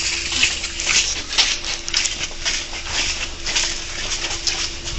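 Footsteps of a group walking quickly along a concrete service tunnel, several uneven steps a second, over a steady low hum.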